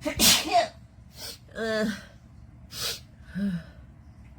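A person sneezing once, loudly, set off by a nasal swab in the nostril, followed by short whimpers and quick sharp breaths.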